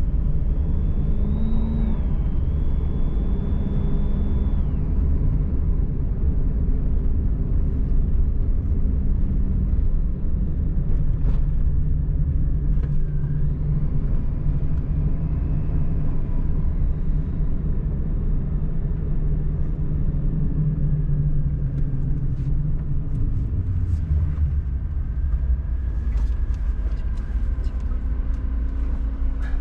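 Car engine and road rumble heard from inside the moving car, a steady low drone whose engine note shifts in pitch a couple of times.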